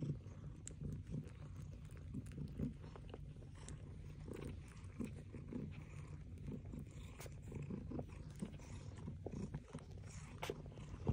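Mother cat and tabby kitten close to the microphone: soft, irregular wet clicks and smacks of cat mouths licking, over a low steady hum.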